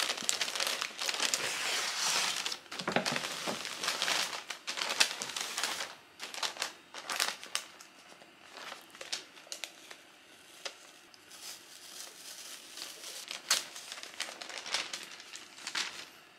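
Paper wrapping crinkling and rustling as a lace dress is unwrapped from it and drawn out of a paper shopping bag. The crinkling is dense for about the first six seconds, then comes as short separate crinkles.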